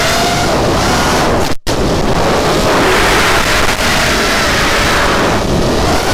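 FPV racing quadcopter's brushless motors and propellers, driven by Littlebee 20A ESCs, picked up loud and distorted by the onboard camera: a whine that glides up and down with throttle over heavy rushing noise, with a brief dropout about a second and a half in.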